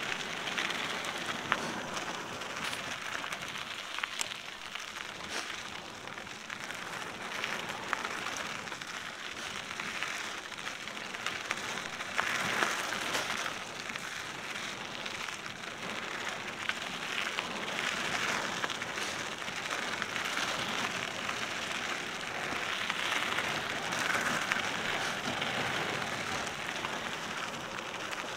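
Cannondale mountain bike rolling down a dry dirt and gravel single-track: a steady gritty hiss of tyres on the trail with many small scattered clicks and rattles.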